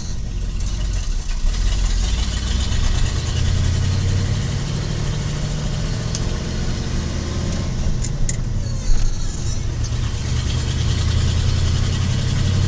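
1986 Ford F250's 351 Windsor V8 running while the truck drives, a steady low drone with road noise.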